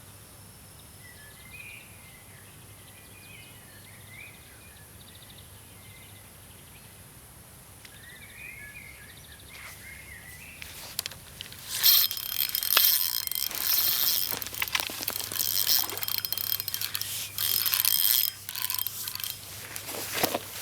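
Small birds chirping briefly over a quiet outdoor background. About halfway through, a loud, uneven run of water splashing and rustling starts and continues.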